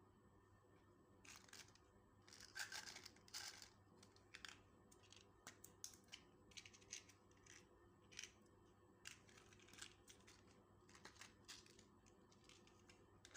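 Slime being worked by hand: faint, irregular sticky crackles and rustles in short clusters.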